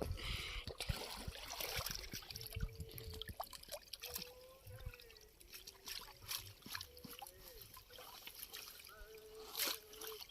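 Pond water splashing and trickling in short, irregular splashes and drips, with a faint wavering voice-like tone in the background.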